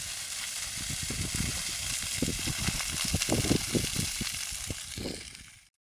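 Dry grass and scrub fire burning: a steady hissing crackle with low rumbling gusts that build up in the middle, then cuts off suddenly near the end.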